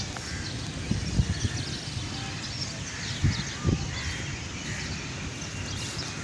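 Birds calling and chirping in short scattered notes, with a few low muffled thumps about one second and three to four seconds in.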